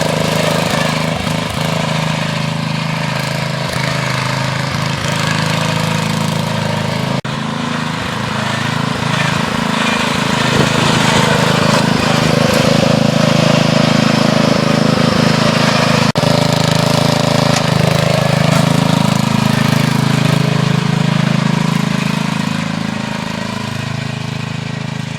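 12 hp MTD lawn tractor engine running steadily, getting louder in the middle and easing off near the end, with two brief dropouts about seven and sixteen seconds in.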